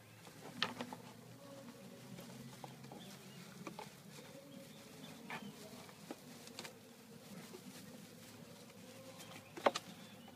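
Scattered light clicks and taps of plastic bottle-rocket parts being handled, over a low steady background murmur. One sharper click comes about half a second in and a louder one near the end.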